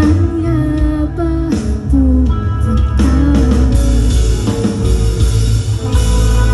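Live rock band through a PA, heard from the crowd: guitars over a heavy bass, with a woman singing.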